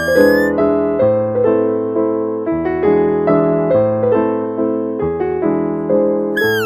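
Background piano music, a steady run of notes about two a second. A short high call rises right at the start, and another high call falls in pitch near the end.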